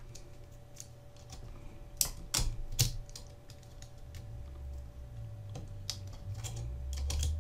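Small, sharp clicks and taps of pliers and fingers handling dial cord on a valve radio's metal dial drum, in two brief clusters, over a faint low rumble.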